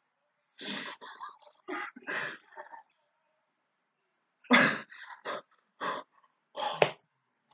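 A man's voice in short wordless outbursts, in two clusters with a silent gap of over a second between them; the loudest comes just after the gap.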